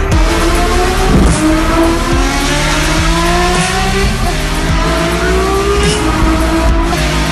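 Lamborghini SCV12's V12 engine at full throttle, its note climbing steadily in pitch as the car accelerates on track.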